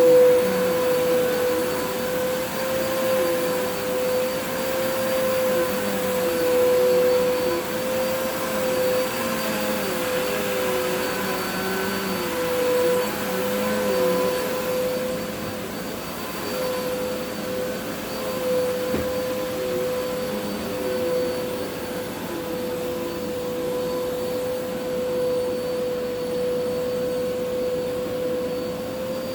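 Vacuum cleaner running steadily: a constant motor whine, with a lower tone underneath that wavers up and down. It gets slightly quieter about halfway through.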